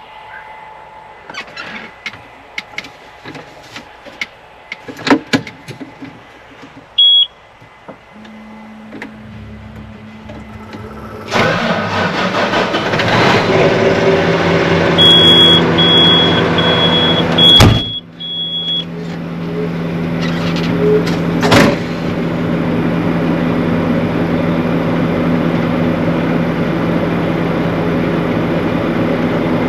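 Clicks and knocks, then a vehicle engine starts about eleven seconds in and runs steadily. A row of short high warning beeps sounds shortly after it starts.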